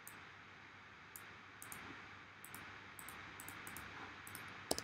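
Faint computer mouse and keyboard clicks over steady microphone hiss, with two sharper clicks near the end.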